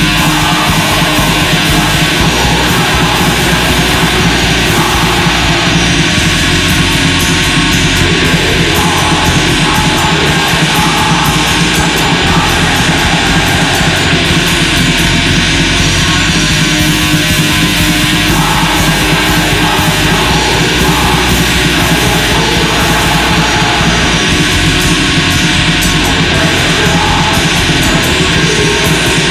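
Black metal music: a loud, dense, unbroken wall of distorted sound.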